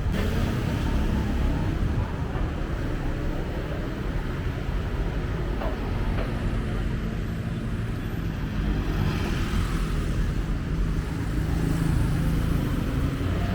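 Steady city street traffic noise from passing cars and other vehicles.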